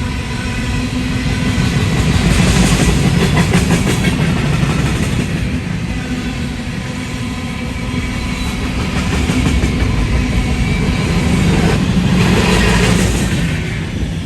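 Freight train rolling past: a steady heavy rumble with wheels clattering over the rail joints. The clatter swells about two seconds in and again near the end.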